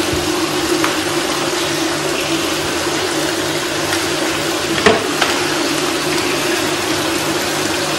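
Water running and splashing in a Turkish bath as an attendant pours bowlfuls over a seated bather, a steady rush with a low hum underneath. A brief knock or splash comes about five seconds in.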